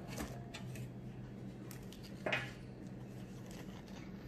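Baking paper rustling as it is peeled off a freshly baked sponge cake, with a few light flicks and one louder crinkle about two seconds in, over a steady low hum.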